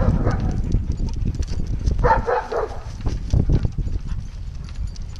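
Low rumble with rattling clicks from a bicycle rolling along a concrete sidewalk while a leashed dog trots beside it. A short pitched squeal comes about two seconds in.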